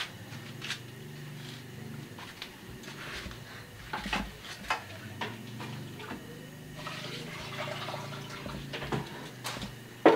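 Cooking oil heating in a wok over a gas burner, with scattered small crackles and pops as traces of water spit in the oil, over a steady low hum. A sharp knock right at the end.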